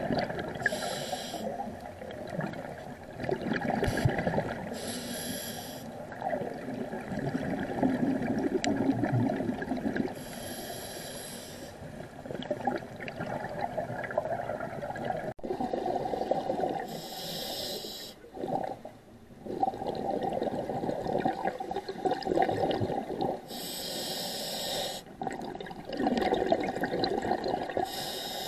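A scuba diver breathing through a regulator underwater: a hiss of inhaled air every few seconds, about six in all, with the rumbling bubble noise of exhaled air between them.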